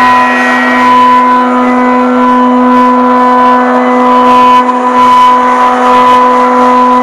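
Mazak Hypersonic 1400L high-speed spindle machining a part under coolant: a loud, steady whine held on one pitch with overtones, dipping briefly about four and a half seconds in.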